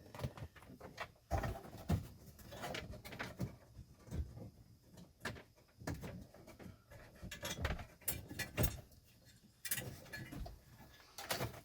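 Irregular soft knocks, clicks and rustles of a microphone cable being fed and pulled through the plastic dashboard panels by hand.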